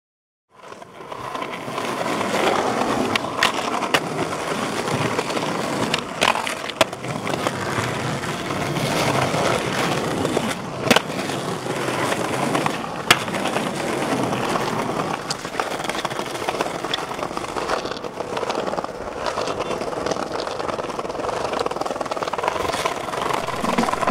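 Skateboard wheels rolling over concrete and paving, a steady rough rumble, with a few sharp clacks of the board hitting the ground.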